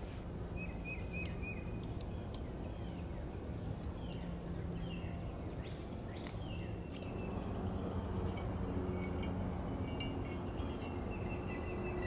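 Small birds chirping and trilling in woodland, with scattered light clicks and rustles of camping gear being handled.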